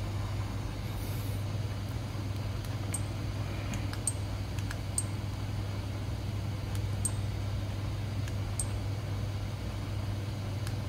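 Faint button clicks of an SJCAM SJ4000 action camera, pressed one at a time a second or two apart while stepping through its settings menu. A steady low hum runs underneath.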